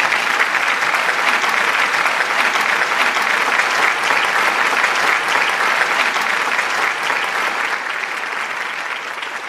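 An audience clapping steadily, easing off slightly near the end.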